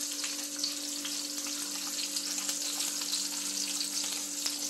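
Dried fish frying in hot oil in a pan: a steady sizzle with many small crackles. A steady low hum runs underneath.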